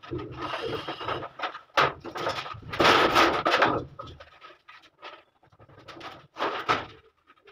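Electrical wires pulled by hand through a ceiling conduit, rasping and rustling in a series of short strokes. The loudest pulls come near the start and around three seconds in, with softer ones after.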